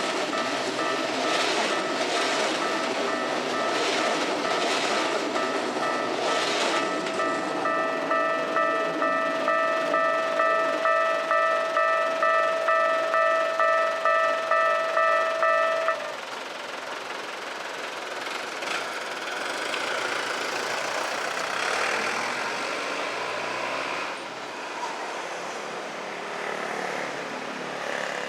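Japanese level-crossing warning bell ringing at a steady beat while a Keikyu train's wheels clatter over rail joints for the first several seconds. The bell stops suddenly about sixteen seconds in, as the crossing opens, leaving steady road and street noise.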